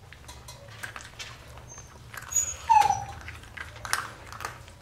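Puppies eating kibble, with scattered crunching and clicking, and one puppy gives a short, falling whimper almost three seconds in.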